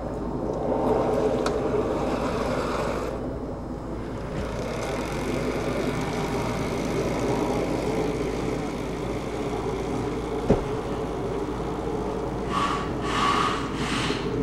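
Electric drive of a six-wheeled LandShark unmanned ground vehicle running steadily as it rolls across asphalt, a low mechanical hum with tyre noise. A single sharp click sounds about ten seconds in, and a few short higher sounds come near the end.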